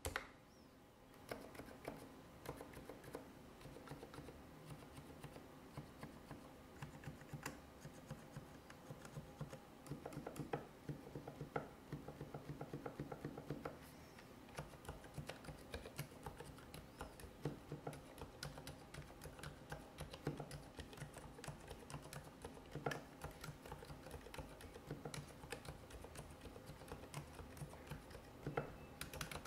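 Continuous typing on a Varmilo VA87M tenkeyless mechanical keyboard with silent red linear switches: a dense, irregular run of soft key presses with low thuds, starting about a second in.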